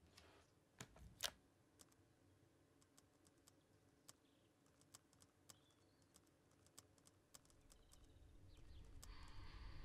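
Faint typing on a laptop keyboard: scattered soft keystroke clicks, with one louder click about a second in. Near the end a low swelling rumble and hiss rises.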